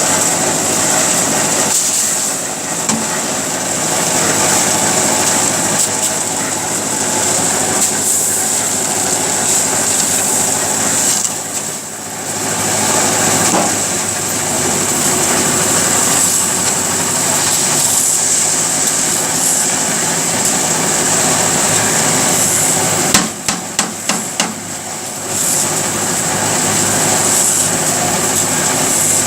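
Diesel-powered drum concrete mixer running steadily, with a constant high whine and continuous mechanical clatter. A quick run of about five sharp knocks comes near the end.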